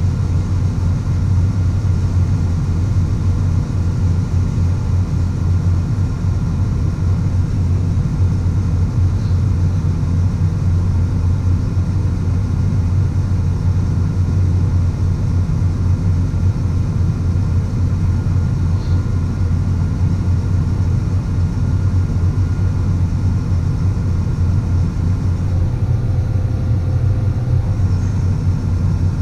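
Large farm machine's diesel engine running steadily under load in the field, a constant low drone that holds the same pitch throughout.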